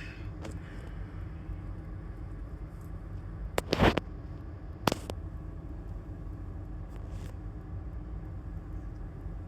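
A few sharp knocks, a quick cluster about three and a half seconds in and another a second later, over a steady low rumble.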